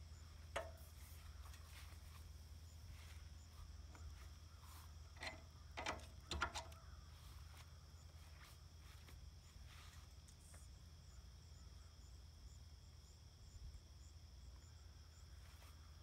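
Near silence outdoors: a steady faint chirring of insects such as crickets over a low hum, with a few soft knocks, once about half a second in and a cluster around five to six and a half seconds in, from the hose being handled or steps on the grass.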